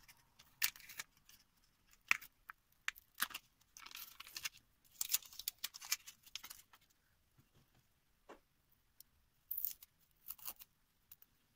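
Paper and masking tape being peeled and torn off a small mold to free a cured epoxy resin ring: irregular short bursts of rustling and crinkling with a few light clicks.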